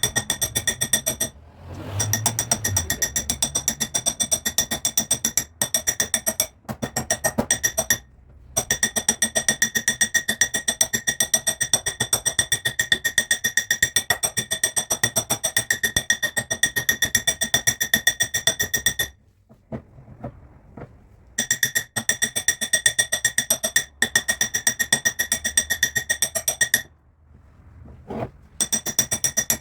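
Hammer rapidly tapping sheet metal on a car body panel, fast even blows several a second with a ringing metallic tone, stopping for brief pauses a few times. This is metal forming and smoothing of the panel.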